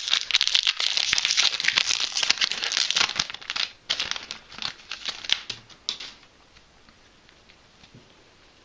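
Foil wrapper of a Yu-Gi-Oh booster pack crinkling as it is torn open and the cards are pulled out. Dense crinkling for about three and a half seconds, then scattered crackles that stop about six seconds in.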